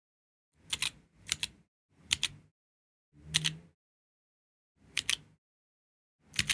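Keys of a Georgi stenographic keyboard struck in chorded steno strokes: six strokes at uneven intervals, each a quick pair of sharp clicks.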